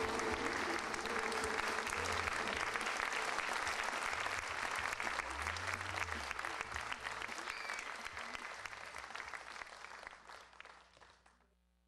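Audience applauding, a dense patter of many hands clapping that dies away over the last few seconds.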